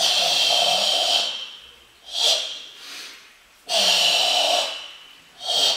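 Forceful hissing ibuki breathing of Sanchin kata: two long exhalations that start abruptly and trail off over about a second, each followed by a shorter breath in that swells and fades.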